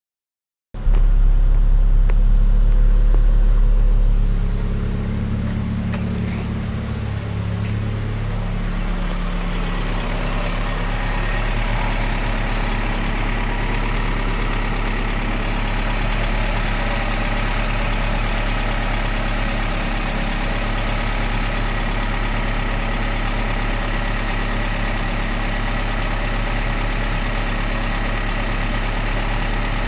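A machine, like an engine idling, running steadily with a low hum that is loudest for the first few seconds and then settles, with a faint higher whine over it.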